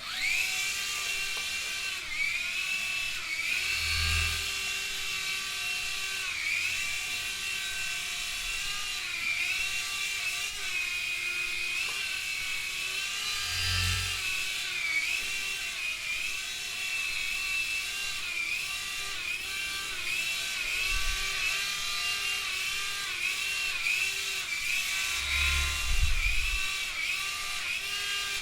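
Indoor toy helicopter's small electric motor and rotor whining in flight, its pitch dipping and rising again every second or two as the throttle changes. A few low thumps come through about four, fourteen, twenty-one and twenty-six seconds in.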